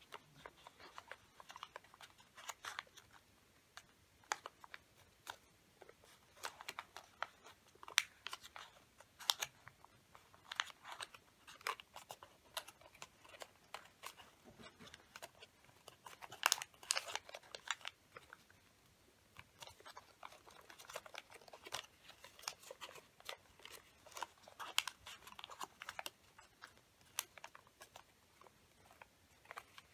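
Hands folding and creasing a square sheet of origami paper: small, irregular crinkles and crackles as the flaps are bent and pressed into place, coming in clusters with short pauses.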